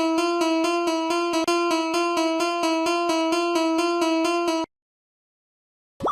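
Japanese electronic railroad crossing warning bell ringing: one steady tone struck over and over in a rapid, even rhythm, cutting off suddenly about four and a half seconds in. Near the end, a short sound effect glides quickly downward in pitch.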